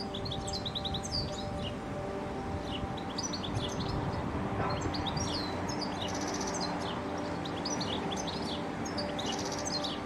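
Male European goldfinch singing: a fast, twittering run of high chirps and trills with a couple of buzzy passages, the song that marks his territory while the female builds the nest. A steady hum of held tones runs underneath.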